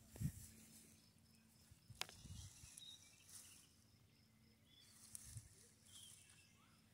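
Near silence outdoors, broken by a few soft low thuds, footsteps on a trail, and one sharp click about two seconds in.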